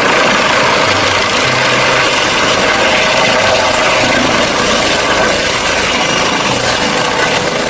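Helicopter running, a steady loud rush of rotor and engine noise with a thin high whine on top.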